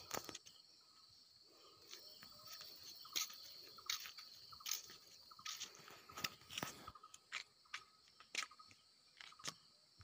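Faint, steady high-pitched insect chorus, with irregular crunching clicks over it.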